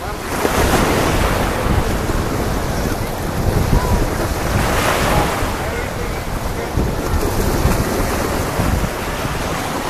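Small waves breaking and washing up a sandy shore, with wind buffeting the microphone and a steady low rumble. The wash swells about half a second in and again around five seconds.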